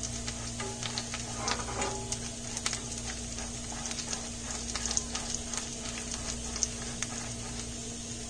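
Cumin seeds sizzling in hot butter and oil in a steel frying pan, with scattered sharp crackles as the seeds splutter, while a spatula stirs them. The crackling shows the seeds are tempering and the fat is hot enough for the onions to go in.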